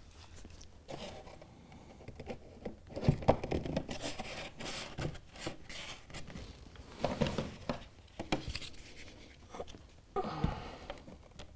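Plastic spring clamps being squeezed open and clipped onto a glued foam retaining-wall piece: scattered clicks and knocks with rustling of handling between them.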